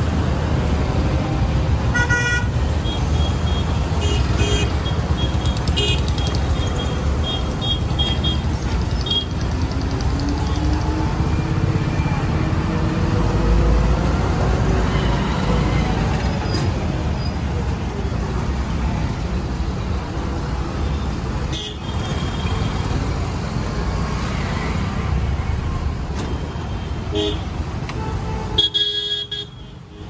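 Diesel engines of a convoy of Preet 987 combine harvesters rolling past in mixed road traffic, a steady low rumble. Vehicle horns toot several times, mostly in the first ten seconds and again near the end.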